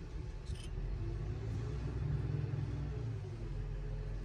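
A low steady rumble, loudest around the middle, with a faint pitched hum that rises and falls over it. A short faint click sounds about half a second in.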